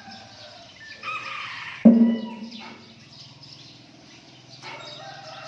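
A rooster crows, then a single stroke on a wooden pong, a hollow log gong, comes about two seconds in and rings low before dying away. Another crow begins near the end. The pong's dawn strokes are the signal for monks to go out on their alms round.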